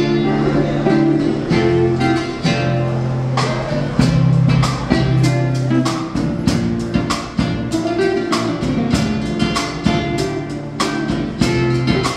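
Live band playing an instrumental groove on acoustic guitar, electric bass and drum kit, with sustained bass notes and steady cymbal strokes coming in after a few seconds.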